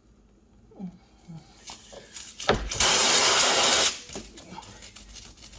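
A short, loud hiss of air escaping from the punctured tire as the plug tool works in the hole, starting with a click about two and a half seconds in and cutting off sharply about a second later, amid small clicks of the tool.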